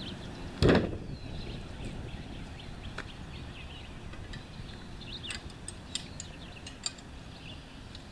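A single heavy thump about a second in, then scattered light metallic clinks and clicks as a hitch-mounted canoe loader's frame is handled. Birds chirp faintly in the background.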